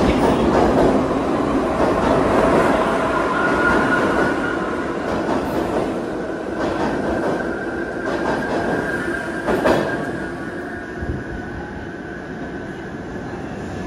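R62A subway train on the 6 local pulling out of the station and running off into the tunnel: its wheels and motors rumble loudly and then fade away. A steady high tone sets in a few seconds in, and there are a few sharp clacks over rail joints about two-thirds of the way through.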